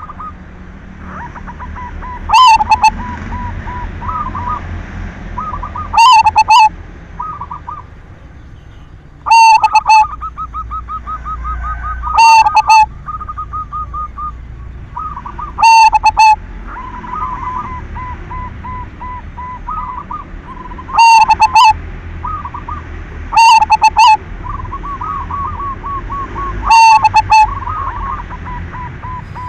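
Zebra dove (perkutut) singing its cooing phrase over and over, loud, about every three to four seconds. Fainter rapid cooing trills from other birds fill the gaps.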